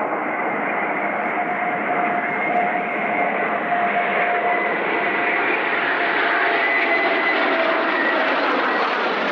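Jet engines of a formation of a large twin-engine transport jet and four Eurofighter Typhoons flying low overhead: a steady roar that grows brighter as the formation comes closer, with a high whine running through it that drops slightly in pitch near the end as it passes.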